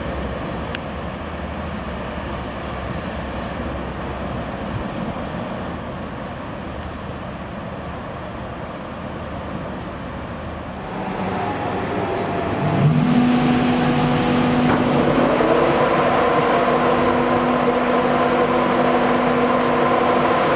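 A Class 142 Pacer diesel railcar's engine rumbling as the unit rolls past slowly. About two-thirds through it gives way, after a short rising pitch, to the steady humming whine of a Class 91 electric locomotive standing at the platform, several steady tones held together.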